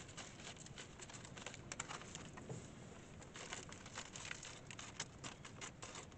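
Potting compost pattering and rustling as it is scooped by hand into thin plastic root trainer cells, with many small, faint crackles.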